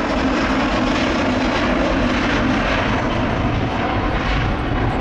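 Airbus A350-1000's twin Rolls-Royce Trent XWB turbofans at takeoff thrust, a steady loud jet rush as the airliner accelerates down the runway and rotates near the end.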